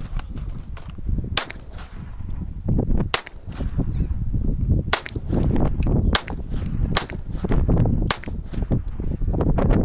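Handgun being fired in a steady series of single shots, roughly one a second, each a sharp crack.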